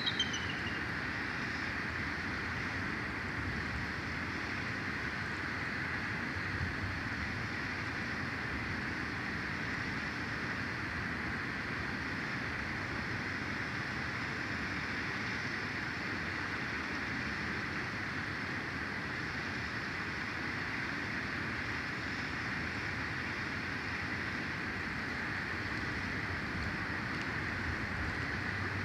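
Steady outdoor ambience from the nest camera's microphone: an even, wind-like hiss over a low rumble, with a short high chirp, like a small bird, right at the start.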